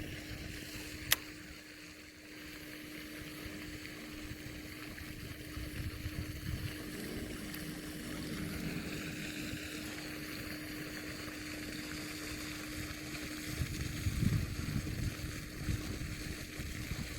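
Outdoor ambience with wind buffeting the microphone in gusts over a steady low hum, and one sharp click about a second in.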